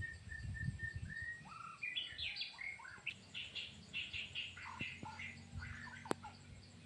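Songbird song: a row of short, evenly repeated whistled notes, then a quick, varied phrase of rising and falling notes. Two sharp clicks come near the end.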